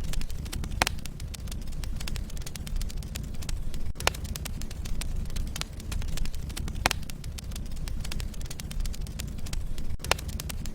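Wood fire in a fireplace: logs crackling with many small snaps over a steady low rumble of flame, and a few sharper pops about every three seconds.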